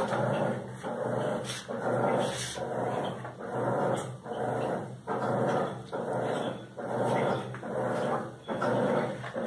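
An animal calling over and over in a steady rhythm, roughly one call every second, each call short and pitched.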